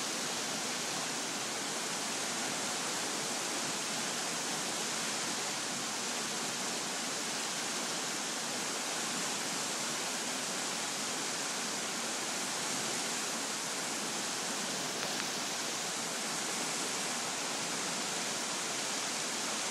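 Flooded creek rushing through its channel: a steady, even rush of fast white water.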